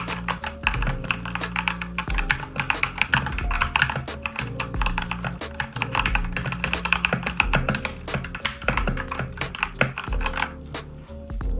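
Fast typing on a Redragon Fizz K617 mechanical keyboard: a rapid run of key clicks that starts about half a second in and stops about a second before the end, over background music.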